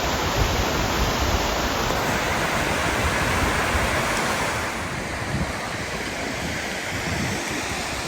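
Waterfall's steady rushing roar of falling water, easing slightly in level about halfway through.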